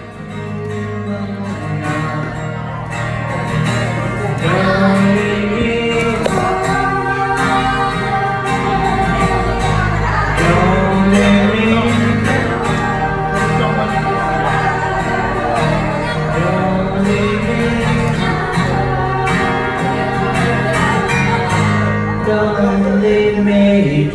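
Live acoustic guitar strumming, with a voice singing a melody over it from a few seconds in.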